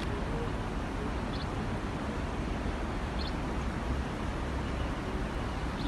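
Steady outdoor city background noise with a low rumble, and two faint, short high chirps, one about a second and a half in and another just past three seconds.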